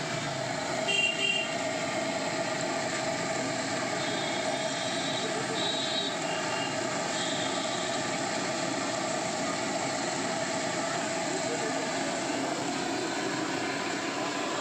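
Steady roar of a pressurised kerosene stove burner heating a karahi, with the hot oil sizzling as jalebi batter is piped into it.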